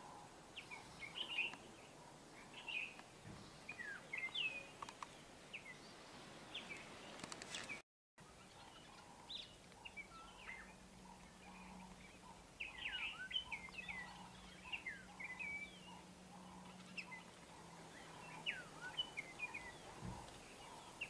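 Small birds chirping and twittering in many quick, short calls, with the sound cutting out briefly about eight seconds in. A faint low hum runs under the calls in the middle stretch.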